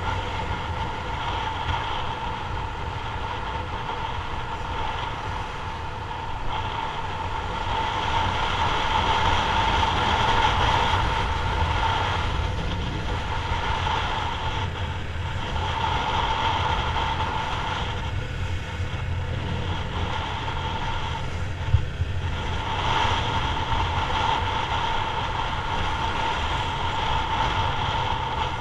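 Yamaha MT-03's 321 cc parallel-twin engine running as the motorcycle rides through town, with wind rushing past the camera. Its sound swells and eases several times as the rider opens and closes the throttle, and there is one sharp knock a little past two-thirds of the way through.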